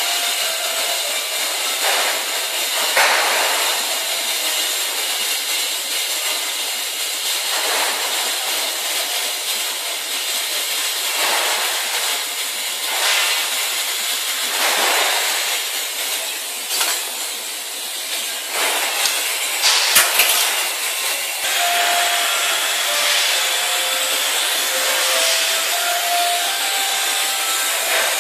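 TIG welding arc on a pipe joint, hissing steadily and swelling now and then as the torch and filler wire work the puddle.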